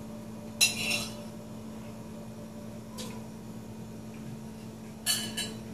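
A metal spoon scraping and clinking against a ceramic plate while eating: once about half a second in, a faint tick around the middle, and again near the end, over a steady low hum.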